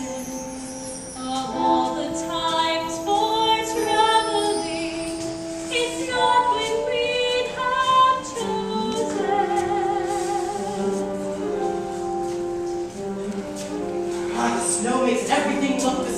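A musical number: female voices singing slow, held notes over instrumental accompaniment.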